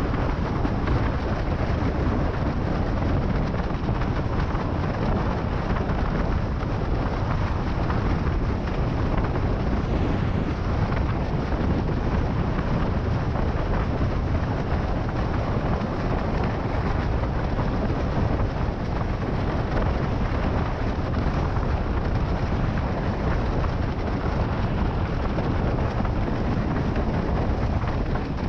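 Wind buffeting the microphone and water rushing under a windsurf board sailing at speed, about 55 km/h: a steady, loud rush of noise, heaviest in the low end.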